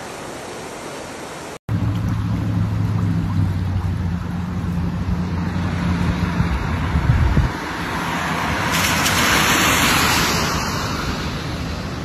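Muddy floodwater gushing over a curb into a flooded street, a steady rush of water, for the first second and a half. Then a low steady hum that stops about halfway through, and a rush of noise that swells and fades near the end.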